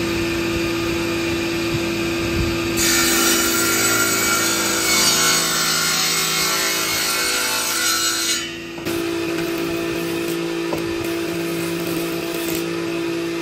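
Electric power saw running with a steady motor hum, cutting through wood for about five seconds from about three seconds in. The cut ends with a brief dip, and the saw keeps running after it.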